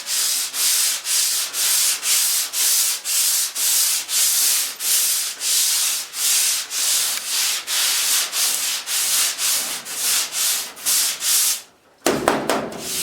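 Sandpaper rubbed by hand back and forth over a truck fender's bodywork in quick, even strokes, a little over two a second. The strokes stop briefly near the end, and a fuller rubbing starts.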